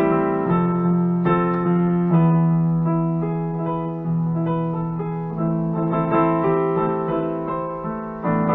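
Digital piano played solo: a slow run of chords, each struck and left to fade before the next.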